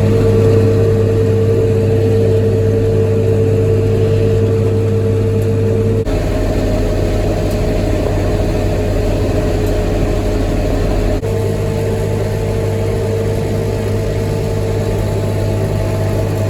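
Tractor engine running steadily, driving a hay baler through the PTO, with the baler's machinery turning. The sound changes abruptly twice, about six and eleven seconds in.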